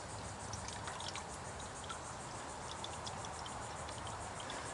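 Faint, steady trickle of flushing liquid draining out of the outboard's cooling passages, with a few light clicks.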